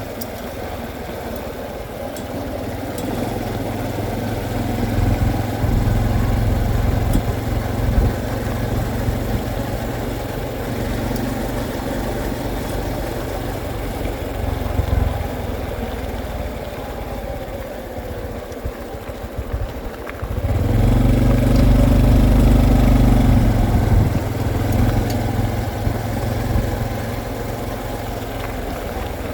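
Honda CT125's small single-cylinder four-stroke engine running on the move, steady for most of the time and louder for a few seconds about two-thirds of the way through.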